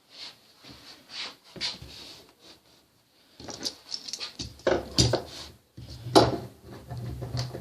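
Short strokes of a hand scraper on the cast-iron guideways of a milling machine, metal scraping on metal, truing the guideways. About halfway through, louder metal knocks and clanks join in, the loudest two near the end.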